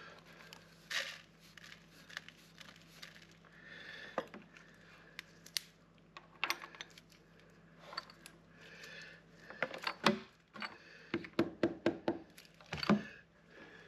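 Steel chips brushed off a milling vise and a mild steel block clinking into place. Then a soft-faced mallet knocks the block down onto the parallels: one loud knock, a quick run of about six lighter taps, and another loud knock near the end, seating it flat for milling.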